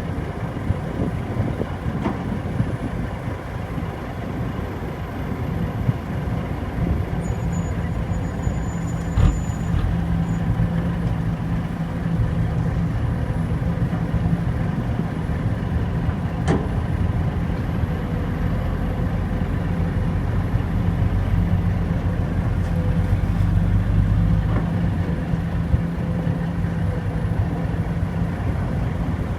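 Heavy diesel engines of an excavator and dump trucks running steadily as soil is loaded. There are two sharp knocks, about nine and sixteen seconds in, and the low engine note swells for a few seconds near the end before dropping back.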